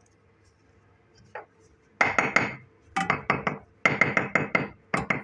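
Sharp clinking knocks of hard tools or metal against brick during stove masonry, in four quick bursts of several strikes each, starting about two seconds in.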